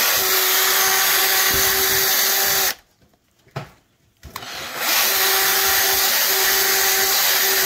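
Cordless drill running steadily as it bores a hole into a riding-mower tire. The motor stops for about two seconds near the middle, then spins back up and runs on.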